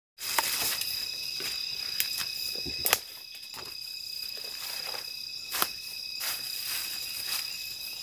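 Night insect chorus, a steady high trilling. Over it come rustling leaves and a few sharp twig cracks as someone pushes through undergrowth.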